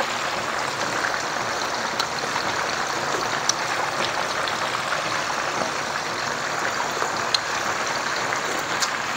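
Turmeric fish-head gravy simmering in a wok over a gas flame: a steady bubbling hiss with a few small scattered ticks.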